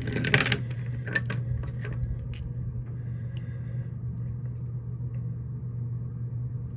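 Fingers handling a stone against the phone: a loud rustle at the start, then a few light clicks and taps over the next two seconds. A steady low hum runs underneath.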